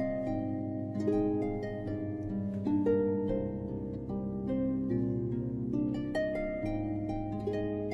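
Instrumental background music: a melody of plucked string notes, harp-like, over held low notes that change every second or so.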